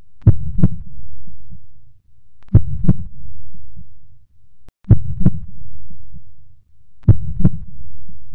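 A slow heartbeat-like sound: four pairs of low double thumps, one pair about every two and a half seconds, with a low rumble swelling up between the pairs.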